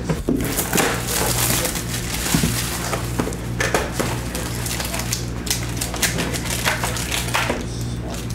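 Plastic shrink wrap crinkling and tearing as a sealed 2022 Panini Limited football trading-card box is unwrapped and its cardboard lid opened and packs lifted out: a steady run of crackles and rustles.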